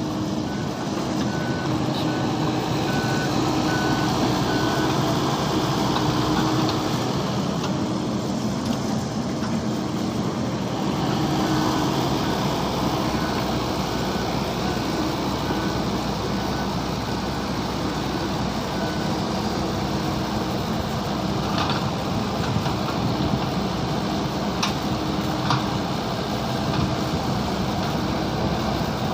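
Mini excavator's diesel engine running steadily, with its travel alarm beeping in even pulses for a few seconds at the start and again for several seconds midway.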